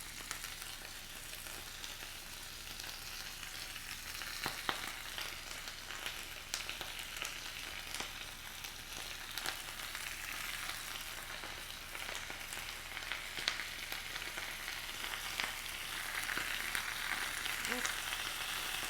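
Thinly sliced beef and Japanese thick green onions frying in a very hot, oiled skillet: a steady sizzle with scattered pops and crackles, growing a little louder near the end.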